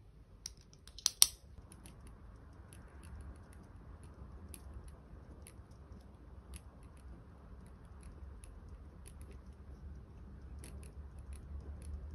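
Pen writing on paper: a steady soft scratching with small ticks of the pen tip as lines of handwriting are written. Two sharp clicks about a second in.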